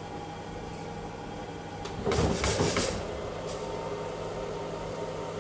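Skywalker coffee roaster in cooling mode, its fan running with a steady hum. About two seconds in, freshly roasted beans clatter for about a second as the cooling tray is pulled out and handled.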